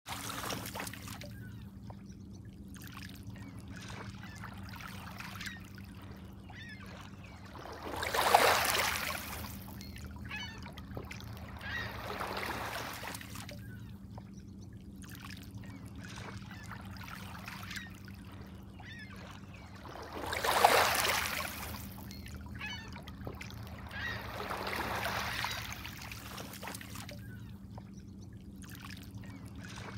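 Small waves lapping and washing over a pebble lakeshore, with two louder washes about a third of the way in and again past two-thirds, each followed a few seconds later by a softer one.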